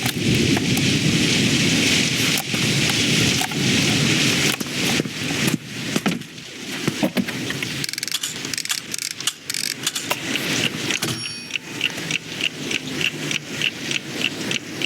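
Heavy rain falling in a thunderstorm, dense at first and thinning after about five seconds. Scattered sharp taps follow, then a regular ticking at about two a second near the end.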